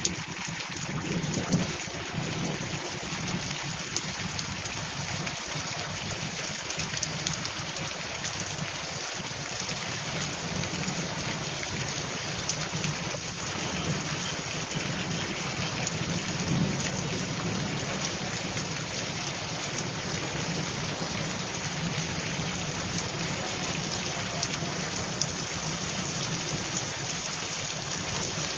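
Heavy rain pouring steadily onto pavement and puddled water, a continuous dense hiss of drops.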